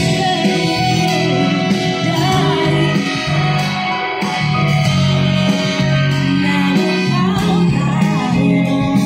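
Live pop band music with singing, played loud over a concert sound system and heard from within the crowd.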